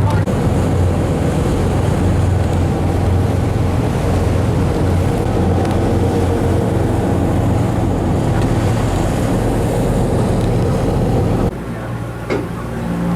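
Boat engine running steadily with a low hum, over wind and water noise. About eleven and a half seconds in, the sound cuts off abruptly to a quieter engine hum with a brief click.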